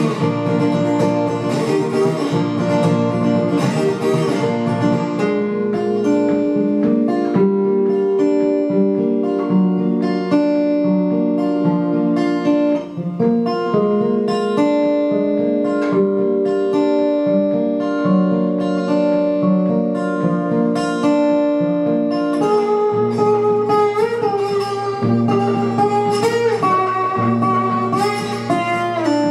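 Acoustic guitar played fingerstyle in an instrumental break: a picked melody line over bass notes. In the last several seconds the melody notes bend in pitch.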